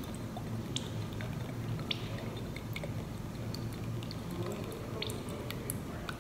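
Soy sauce poured from a bottle into a tablespoon, a faint liquid trickle with a few small light clicks, over a steady low background hum.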